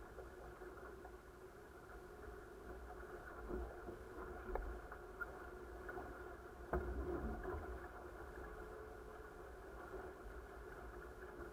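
Muffled rush of water along the hulls of an A-class catamaran sailing, with wind rumbling on the microphone and a few knocks, the sharpest about seven seconds in.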